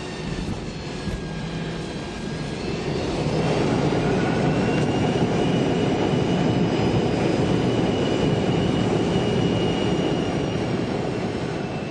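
Steady rushing roar of an aircraft going down, swelling about three seconds in and fading away near the end, with a faint high whine over it.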